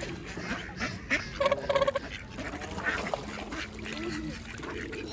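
Waterfowl calling, with a quick run of short honks about a second and a half in and scattered calls around it.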